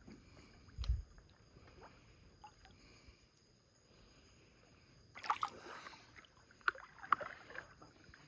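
River water splashing and sloshing around people wading, with a dull low thump about a second in and a louder run of splashes and sharp clicks in the second half.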